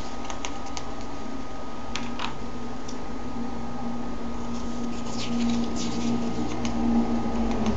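Pages of a comic book being handled and turned, with short papery rustles in a few brief clusters. Underneath is a steady low hum and hiss that stops abruptly near the end.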